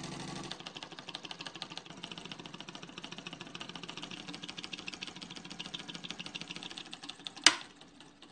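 Homemade solenoid engine running: the solenoid pulling its iron plunger in on each stroke, switched by copper-wire contacts riding a cam, makes a rapid, even clatter. A single loud click comes near the end, and the clattering then dies away.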